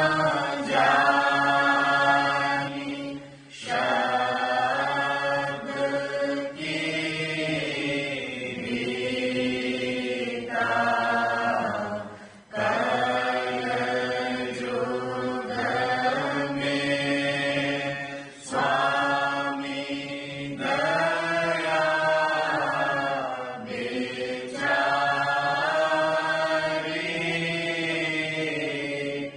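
Devotional chant sung in unison by a group of voices, in long drawn-out phrases of a few seconds each, with short pauses between them.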